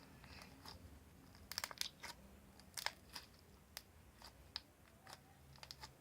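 Faint, irregular small clicks and crackles, close to the microphone, with a short cluster about one and a half seconds in and another near three seconds.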